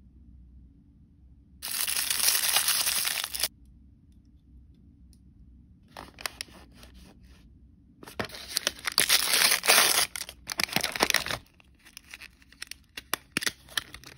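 Foil blind-bag packaging being torn open and crinkled by hand. There is a loud burst of tearing about two seconds in, then sparse crinkling, then a longer stretch of loud tearing and crinkling from about eight seconds in. Scattered sharp plastic crackles follow near the end.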